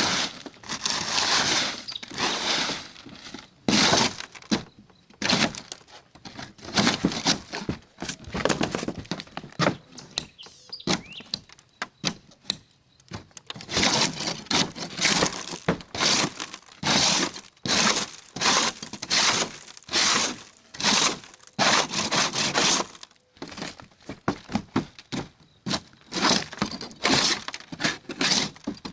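Hand scraper stripping old, cracked tar coating off a camper roof. Repeated rough scraping strokes, with the brittle coating cracking and breaking away, and a few short pauses between bouts.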